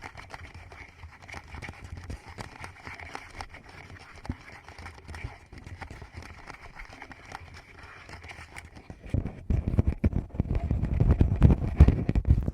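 Fingers touching, tapping and rubbing directly on a Tascam microphone. For the first nine seconds or so these are light, quick taps and scratches. Then they turn much louder, into deep, close thumps and rubbing right on the microphone.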